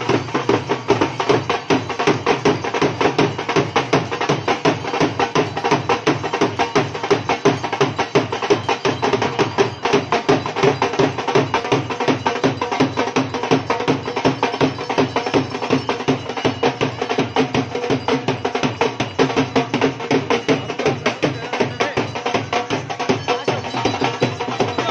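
Dhol drums beaten in a fast, steady dance rhythm, several strokes a second without a break.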